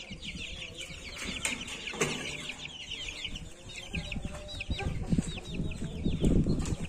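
Month-old Pama chicks peeping: a rapid, continuous run of short, high, falling peeps. A few handling knocks and low rustling sit under them, loudest near the end.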